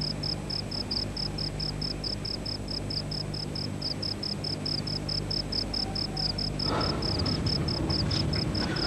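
Cricket chirping steadily, about five short high chirps a second, over a low steady hum. A rustling noise comes in near the end.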